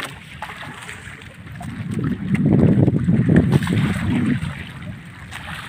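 Wind buffeting the microphone: a low, uneven rumbling that swells about two seconds in and eases off again after about four and a half seconds.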